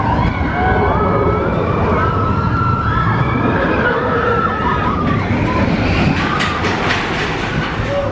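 Several people screaming and whooping in long rising-and-falling cries over a heavy low rumble of wind and ride noise.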